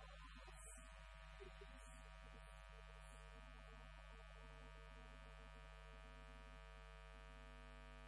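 Mixed chamber choir singing a faint, softly held chord whose notes shift slowly, under a steady electrical hum.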